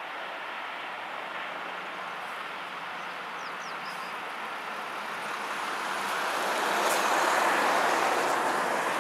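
Airbus A330-300 jet engines running during the landing rollout: a steady roar that grows louder about six seconds in and stays at its loudest toward the end.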